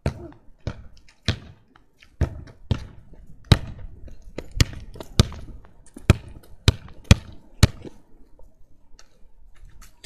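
A football bouncing and being struck, about a dozen sharp thuds at irregular intervals that stop about eight seconds in.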